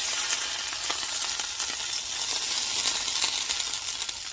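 A frying pan sizzling steadily with hot oil and chicken drippings, and a few light clicks of a utensil.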